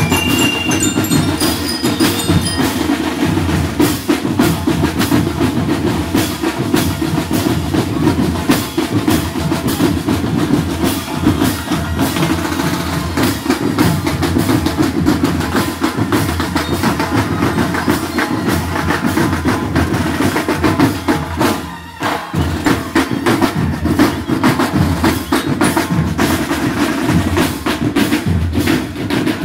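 Marching band drum line of snare and bass drums playing a fast cadence, with bell lyres ringing a few notes at the start. The drumming breaks off briefly a little past twenty seconds in, then carries on.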